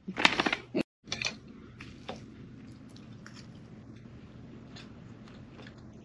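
A short, loud rustling burst at the start, then a person eating: faint chewing with scattered light clicks.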